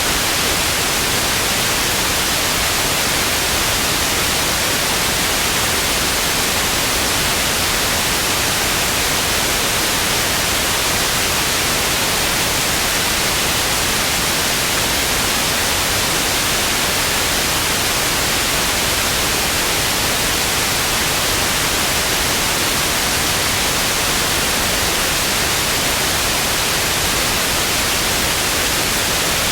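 Television static: a steady, loud hiss of noise, strongest in the upper range, unchanging throughout.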